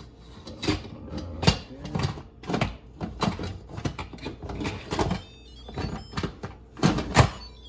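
A run of sharp clicks and knocks as an Instant Pot's lid is fitted and turned to lock, with some fumbling, over background music.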